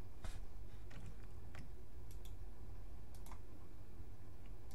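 Scattered light clicks of a computer mouse and keyboard, about seven or eight, some in quick pairs, over a faint steady low hum.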